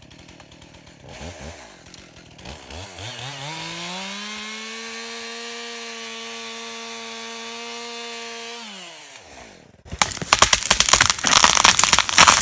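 Chainsaw revving up and running at high speed for about five seconds on the final felling cut, then let off so its note falls away. About ten seconds in there is a sudden loud run of cracking and crashing, the loudest sound: the felled tree breaking through branches as it comes down.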